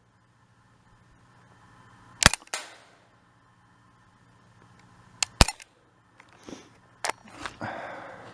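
Three shots from an Umarex Beretta PX4 Storm CO2 air pistol, about two, five and a half and seven seconds in. The first is followed a moment later by the ring of a hit on a steel gong target. Handling noise follows near the end as the pistol is lowered.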